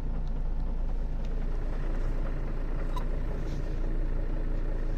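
Mercedes Sprinter diesel engine idling steadily with the clutch released. The idle hunts, and the owner puts the knock and wandering idle down to a failing dual-mass flywheel; pressing the clutch calms it.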